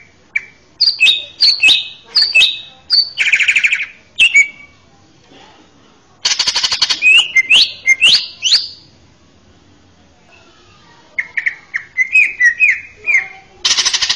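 Male green leafbird (cucak ijo) singing in three loud runs of song separated by pauses of a second or two. The song mixes sharp chirps, quick gliding whistles and harsh buzzing rattles.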